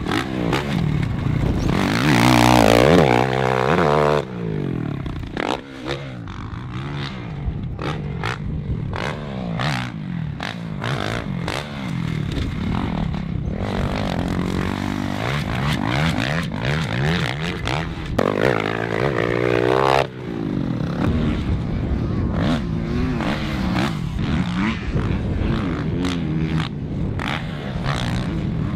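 Motocross bike engine revving up and dropping off again and again as it is ridden around a dirt track over jumps and corners, with sharp cuts in the revs, loudest twice as it passes close.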